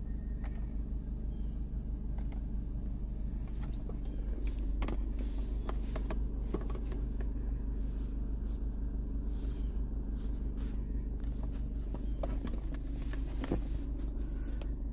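Car engine idling steadily, with scattered light clicks and taps over it. The engine is logging a P0171 lean code on bank 1, which the owner is checking for a vacuum leak.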